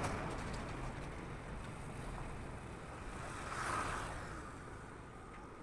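Road traffic going by, one vehicle swelling up a little past the middle and fading away.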